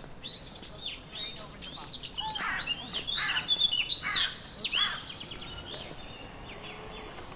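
Songbirds singing in the trees, a busy run of quick chirps and whistled sliding notes that is loudest in the middle, thinning to a few quieter calls over the last couple of seconds.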